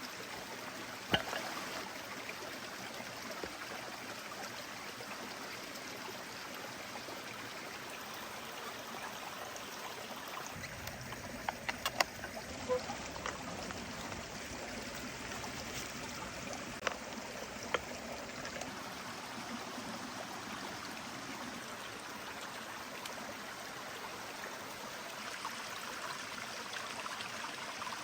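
A steady, even rushing noise with no pitch to it, broken by a few sharp clicks: one about a second in, a small cluster in the middle and two more a few seconds later.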